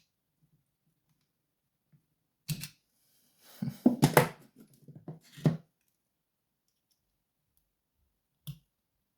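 Small metal clicks, knocks and scraping from a Sesamee combination padlock being taken apart with a tool: one knock about two and a half seconds in, a busier cluster with scraping around four seconds, another knock around five and a half, and a single click near the end.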